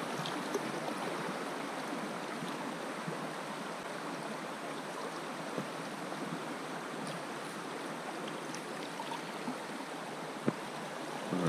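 Shallow river water running fast over a riffle and against an inflatable boat drifting through it, a steady rush. A single sharp click sounds near the end.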